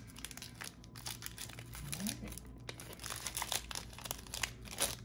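Foil wrapper of a trading card pack crinkling as its crimped seal is pulled open by hand: a run of crisp crackles that crowd together in the last two seconds.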